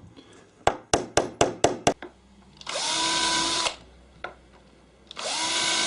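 Hammer tapping a nail punch in a quick run of about six strokes to sink the pins holding the staff bead. Then a power drill runs twice, about a second each time, spinning up to a steady whine.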